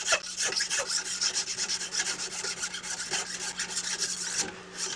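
Hand file rasping across a split-bamboo rod strip held in a wooden filing block, in quick short strokes with a brief pause near the end: dressing down the bump at a node so it lies flush.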